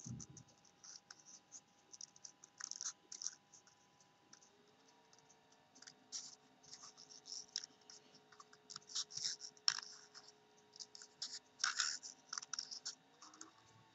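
Scissors cutting around a small paper butterfly: a run of short, irregular snips and paper crackles. A faint steady hum lies underneath.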